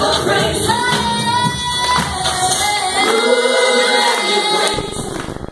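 Gospel worship song sung by a vocal group with the band. About three seconds in, the low instruments drop out while the voices hold a final chord, which fades near the end.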